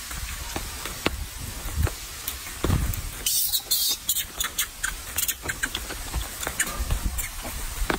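Macaque eating fruit up close: a run of short, sharp wet clicks and smacks from its chewing and biting, with a brief hiss about three seconds in.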